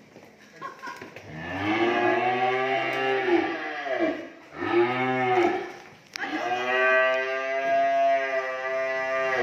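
Cattle mooing three times: a long call that rises and falls in pitch, a short one, then a long, level call starting about six seconds in.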